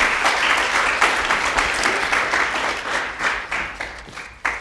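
Audience applauding, a dense patter of many hands clapping that thins out and fades over the last second or so. A single sharp knock comes just before it ends.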